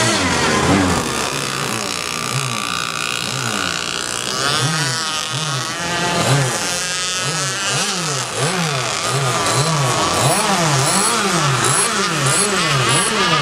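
Radio-controlled catamaran drag boat's small engine running hard across the water, its pitch rising and falling over and over, about one and a half times a second.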